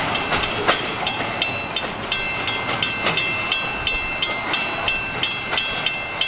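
Railroad grade-crossing bell ringing at about three strikes a second, each strike ringing on, over the rumble of a freight train rolling away past the crossing.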